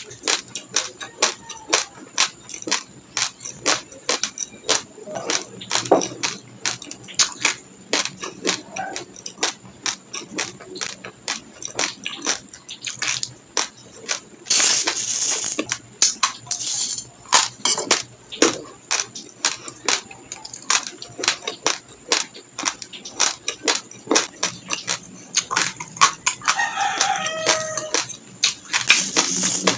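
Raw long-grain basmati rice being crunched between the teeth: dry, sharp cracks of breaking grains, several a second and uneven, with a denser burst of crunching about halfway through. Near the end a drawn-out call falling in pitch sounds in the background.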